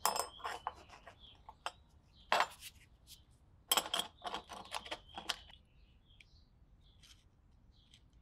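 Metal hoof-knife blade and perforated metal handle scales clicking and clinking against each other and a wooden workbench as they are fitted together, in three clusters of sharp clicks over the first five seconds or so.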